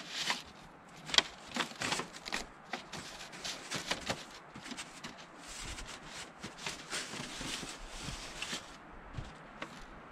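Light metal stovepipe chimney sections being handled and fitted together: irregular clinks and knocks, with a longer spell of metal scraping around the middle.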